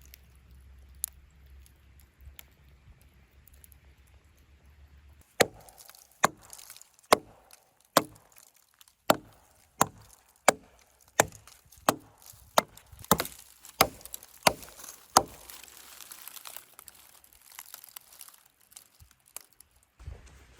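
Hatchet chopping into a small tree's trunk: about fourteen sharp strikes, a little over one a second, starting about five seconds in and stopping about fifteen seconds in.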